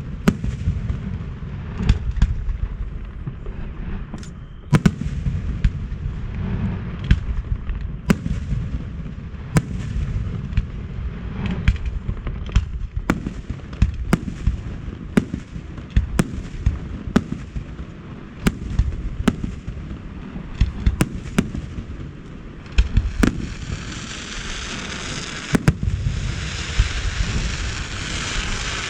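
Fireworks display: an irregular series of sharp bangs, about one or two a second, over a continuous low rumble. Near the end a dense crackling builds up under the bangs.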